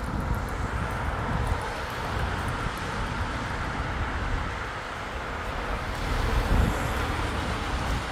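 Road traffic going by on a city street: a steady wash of car and engine noise with a low rumble, swelling a little about six seconds in as a vehicle passes closer.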